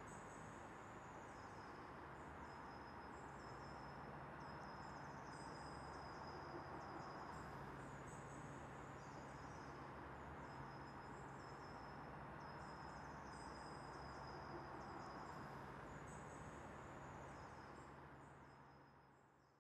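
Faint outdoor ambience: high chirps repeated in short phrases over a soft hiss and a low steady hum, fading out near the end.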